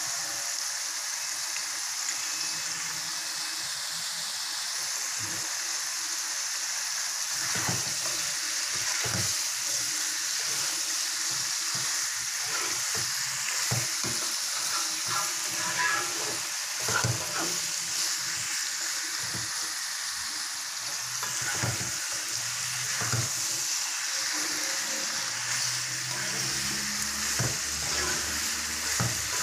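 Food sizzling in hot oil in a pan, a steady hiss, while it is stirred. From about seven seconds in, a ladle knocks and scrapes against the pan again and again.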